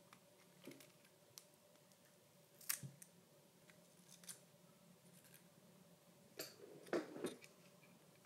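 Near silence, broken by a few faint clicks and taps from handling the circuit board, battery and soldering iron while a battery is desoldered. The clearest tap comes about three seconds in, and a short cluster comes around seven seconds in.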